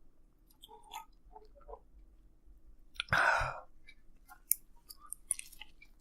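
A man chewing a mouthful of pizza, with small wet mouth clicks and crackles. About three seconds in comes a loud breathy rush lasting about half a second, followed by a few sharp clicks.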